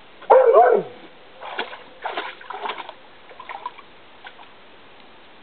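An Airedale terrier gives one short bark, then water splashes in a run of irregular strokes over the next few seconds.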